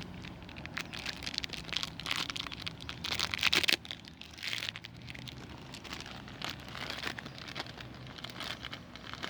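Packaging crinkling and rustling as the new oil filter O-ring is unwrapped and handled, loudest for about a second a little after three seconds in.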